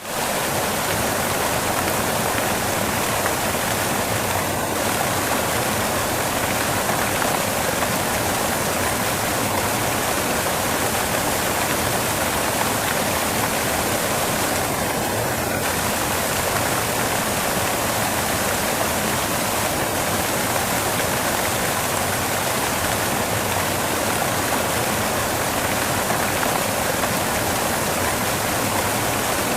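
Steady, even white-noise hiss, with no change in level or pitch.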